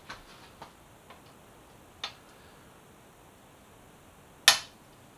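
Light scattered clicks of Allen keys being tried on a small screw, then one sharp click about four and a half seconds in as the Allen screw breaks loose.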